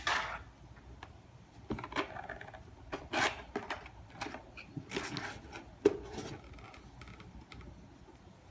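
Cardboard box scraping and rustling in irregular bursts as a Siamese cat moves about inside it and pushes against the flaps. There is a sharper knock about six seconds in.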